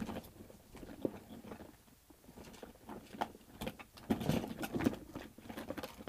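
Soft, irregular tapping and rustling of hands handling things close to a phone's microphone.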